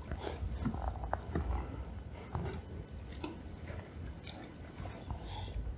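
Wind buffeting the microphone as a low rumble, with scattered small clicks and creaks over it.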